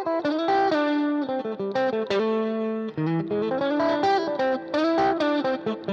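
Electric guitar (Fender Stratocaster) played through the overdrive section of an Egnater Goldsmith pedal into a Roland Blues Cube Hot transistor amplifier. It plays a lightly overdriven phrase of picked single notes and chords, with a brief gap about three seconds in.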